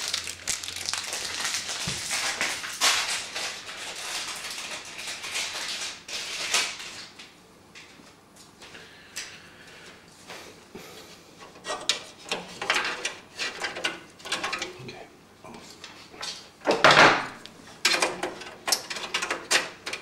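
Hands fitting a motherboard I/O backing plate into the rear of a PC case. The first few seconds are rustling and scraping, then come scattered small clicks and taps, with one louder scraping burst a little before the end.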